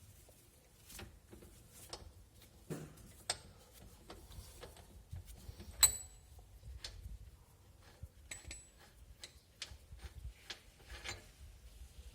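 Irregular light metallic clicks and taps of tools and brake parts being handled, with one sharp, ringing metal clink about six seconds in.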